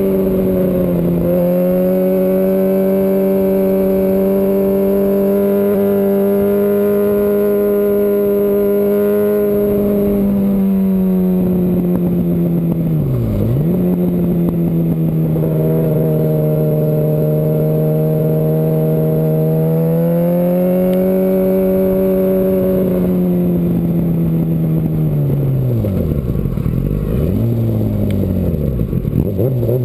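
2005 Yamaha R1 inline-four sport-bike engine running hard at high revs under way on a racetrack, heard close up from the tail. Its pitch holds steady, dips sharply and comes straight back about halfway through, then falls near the end with several quick dips and rises.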